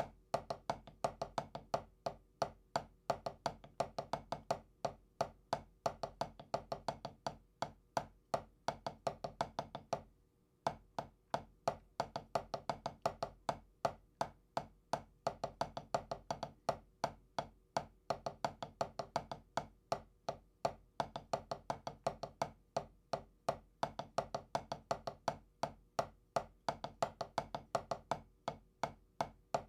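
Drumsticks playing a steady, fast stream of strokes with regularly spaced louder accents, a double-stroke roll practice exercise. The playing stops for about half a second roughly ten seconds in, then carries on.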